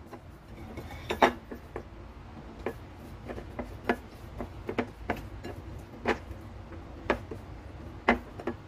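Light, irregular clicks and taps of kitchen utensils being handled while seasoning is sprinkled over raw chicken pieces, roughly one a second, over a low steady hum.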